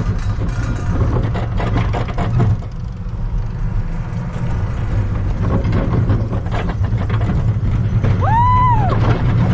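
Roller coaster ride heard from an onboard camera: a steady rumble of wind and track with scattered rattles and clacks. Near the end, a rider gives one rising-and-falling "woo" yell.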